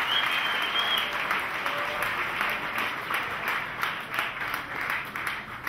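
Audience applauding steadily, with one high, held whistle from the crowd in the first second.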